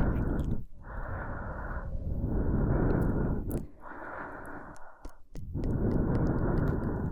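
A woman breathing slowly and close to the microphone, long breaths in and out of one to two seconds each with brief pauses between them.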